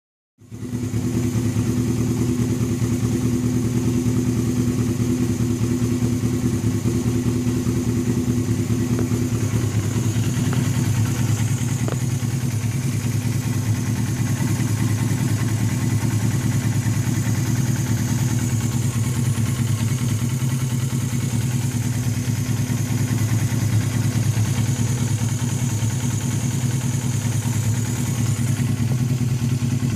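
1992 Suzuki GS500E's parallel-twin engine running steadily through a Vance and Hines aftermarket exhaust, without revving. The sound starts about half a second in.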